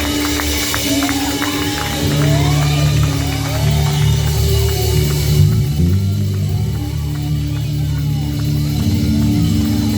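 Live gospel band playing an instrumental passage between sung lines, with a steady bass line under repeated sliding guitar phrases.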